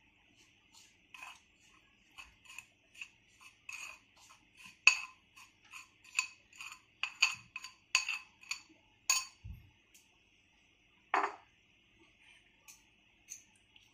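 Metal spoon clinking and scraping against a steel vessel in a run of irregular taps, thickest through the middle, with a heavier knock near the end.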